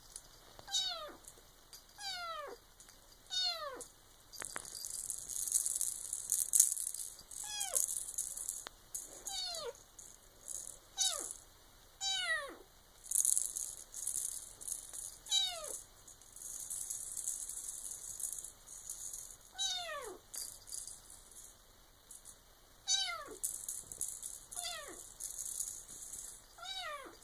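Bengal kitten meowing over and over, about a dozen short calls that each slide steeply down in pitch, one every second or few. Stretches of high rattling noise run between the calls, the longest in the middle.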